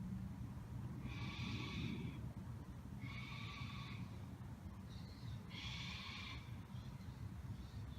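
Three harsh animal screeches, each about a second long and a second or so apart, over a steady low hum.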